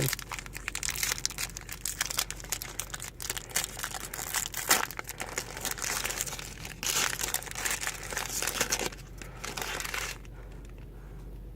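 Trading card pack wrapper being torn open and crinkled by hand, a dense crackling that stops about ten seconds in.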